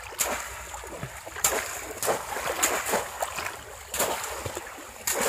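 Shallow floodwater splashing as bamboo polo cone traps are plunged down into it again and again, a sharp splash every second or so over the swirl of stirred water.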